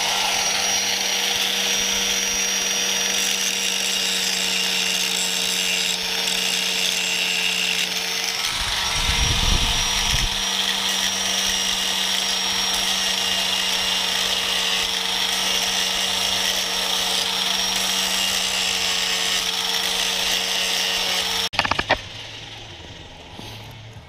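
Handheld angle grinder running steadily, grinding a plated steel chain hook clamped in a vise to prepare it for welding. The grinding stops abruptly near the end.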